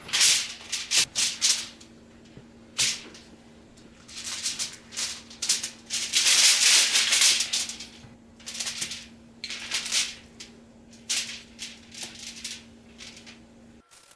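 Old Bay seasoning being shaken from its shaker container onto chicken legs: repeated short rattling shakes in clusters, busiest a few seconds in, over a steady low hum that stops near the end.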